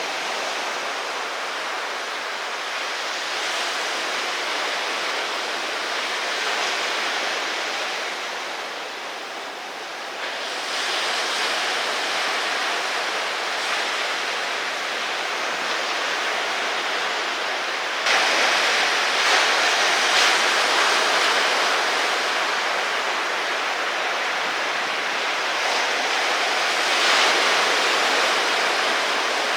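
Ocean surf: a steady rush of breaking waves and churning water. It grows louder about ten seconds in and is loudest around eighteen to twenty-one seconds in.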